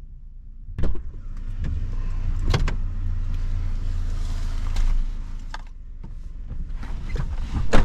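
Truck door opening with a click, a few seconds of outside rumble and rustling with small knocks as someone climbs into the cab, then the door shut with a loud thud near the end.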